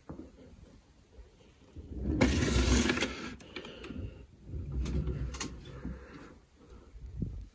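Wooden desk drawers sliding on their runners: one drawer pushed shut and another pulled open, two long scraping slides with a few clicks and a low knock near the end.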